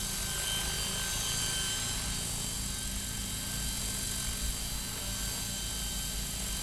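Electric Maxi Joker RC helicopter with a flybarred two-blade main rotor, hovering and slowly yawing around: a steady rotor hum with a constant high motor whine.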